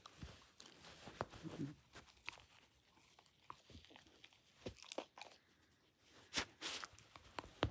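Dachshund chewing and tearing at a plush corduroy toy: irregular soft crunches, clicks and fabric-tearing noises, with a couple of sharper clicks near the end.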